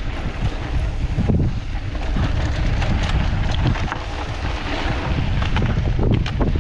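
Wind buffeting the camera microphone during a mountain-bike descent, over a steady low rumble of tyres on dirt, with many small clicks and rattles from the bike on rough ground.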